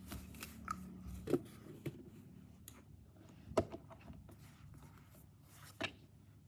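A handful of light knocks and clicks in a pause between spoken lines, the sharpest about a second and a half in, about three and a half seconds in and near the end, over faint room noise.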